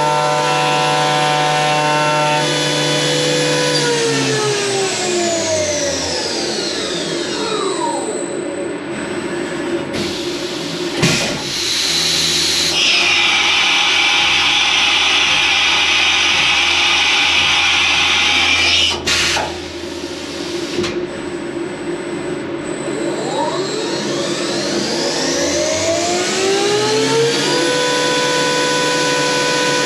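CNC vertical milling machine (Optimum OPTImill F 105): the spindle whine falls away as it winds down from cutting speed. About ten seconds in comes an automatic tool change, with a clunk, a long hiss and another clunk. The spindle then spins back up in a rising whine and settles at a steady pitch as cutting of the aluminium resumes.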